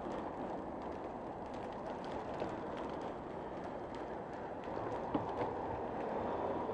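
Steady rushing outdoor background noise, with a couple of faint knocks a little after five seconds in.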